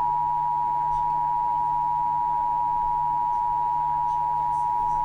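Emergency Alert System attention signal: two tones sounded together as one loud, steady, unbroken alarm tone, the signal that an emergency alert message follows.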